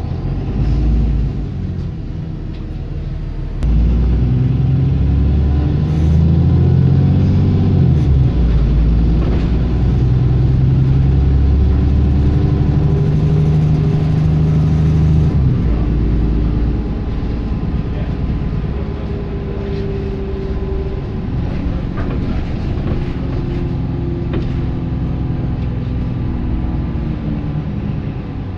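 Engine of a VDL Pulsar double-decker bus heard from inside the upper deck, with an exhaust leak from a blown exhaust. About three and a half seconds in the engine note jumps and climbs as the bus pulls away, stays loud for about twelve seconds, then drops back to a steadier, lower running note.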